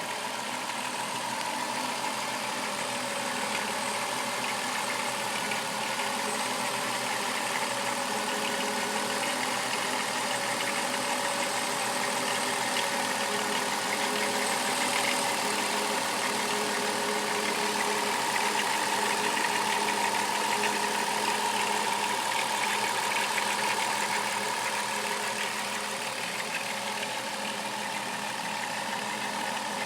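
Chrysler Town and Country minivan's 3.3-litre V6 engine running steadily at idle with a rattling noise.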